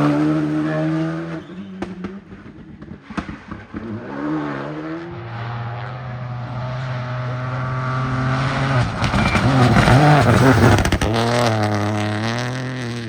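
Rally car engine at high revs, easing off about a second in with a string of sharp cracks, then revving up and down through gear changes and growing loudest near ten seconds in.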